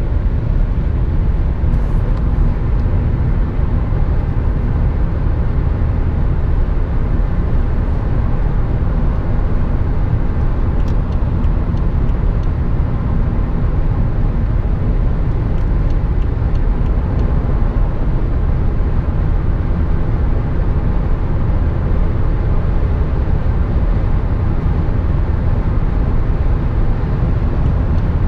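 Steady in-cabin road and engine noise of a BMW 535i (F10) cruising on a motorway: a low, even rumble of tyres and wind with a faint steady hum from its turbocharged inline-six, no revving or gear changes.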